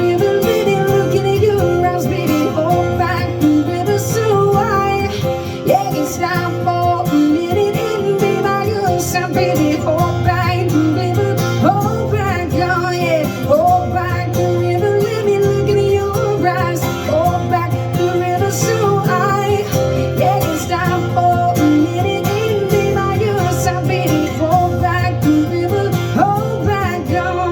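Music: a song with guitar accompaniment and a singing voice gliding between notes.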